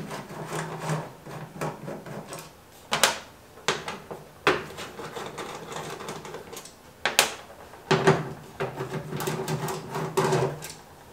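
Hand screwdriver backing bolts out of the top of a WEN 3410 air filtration unit's housing: scattered sharp metal clicks and clinks with quieter scraping and rubbing between them.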